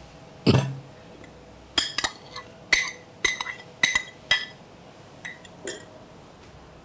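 Glass and ceramic bowls being handled on a table: a knock about half a second in, then a run of about a dozen quick clinks with short ringing as the bowls touch.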